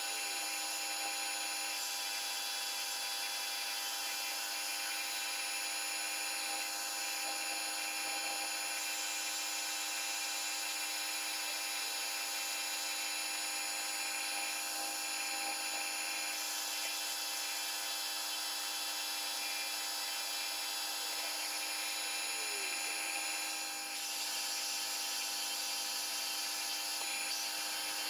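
AL960 metal lathe running under power, turning a Morse taper on a 4140 steel shaft. It gives a steady mechanical whine made of several steady tones.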